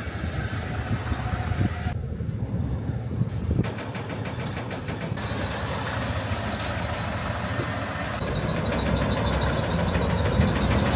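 4x4 truck engine running with a steady low rumble, the sound changing abruptly a few times.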